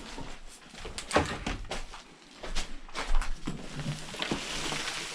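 Irregular knocks, scuffs and crunches of someone moving over a debris-strewn, unsound wooden floor, with louder thumps about a second in and again about three seconds in.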